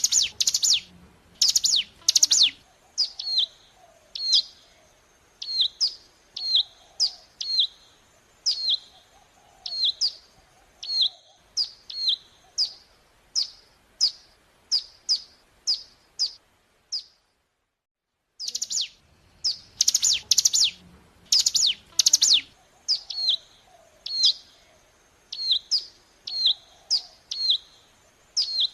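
Ciblek gunung, a prinia, calling in a rapid series of sharp, downward-sweeping chirps, about two a second. The chirps break off for a little over a second near the middle, then the same run starts again as a looped recording.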